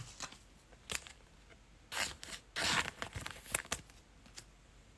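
Trading cards and foil pack wrappers handled close to the microphone: scattered light clicks, with two short rustles about two and three seconds in.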